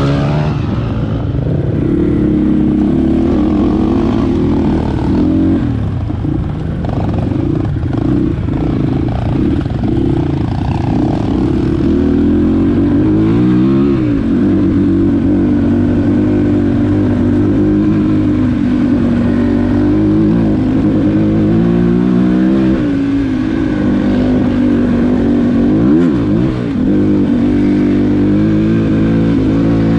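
Dirt bike engine running under load on an enduro trail, its revs rising and dipping several times as the rider works the throttle.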